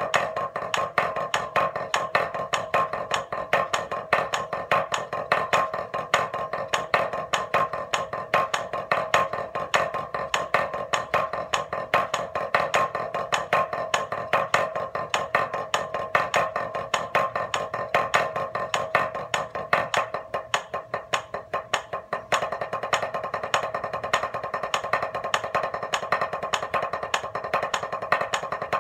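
Drumsticks playing a triplet grid rudiment exercise on a practice pad: a fast, continuous stream of even stick strokes with louder accented strokes among them. The strokes turn softer for about two seconds around two-thirds of the way through, then go on at an even level.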